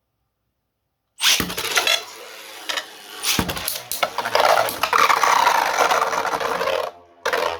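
3D-printed Beyblade tops launched about a second in, then spinning, scraping and clashing in the stadium as a steady gritty whirr for about six seconds, ending in a short clatter near the end as the round is decided.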